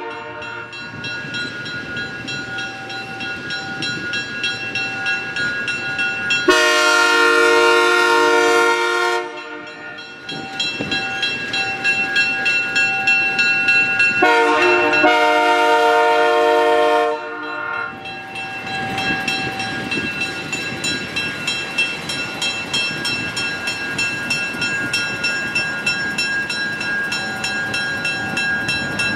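ALCO FPA diesel locomotives of the New York & Lake Erie Railroad running, with their air horn sounding two long blasts: one about six seconds in and one about fourteen seconds in. Between the blasts a steady engine tone carries on, and later there is a fast, rhythmic clicking of wheels over rail joints.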